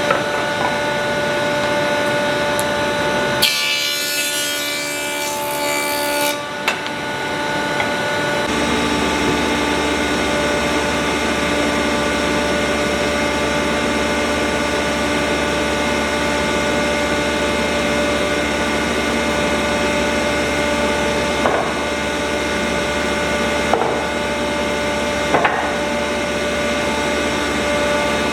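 A woodworking power tool running steadily against wood, with a rasping, sawing noise over a held mechanical whine. The sound changes abruptly a few seconds in, and a low hum joins about eight seconds in.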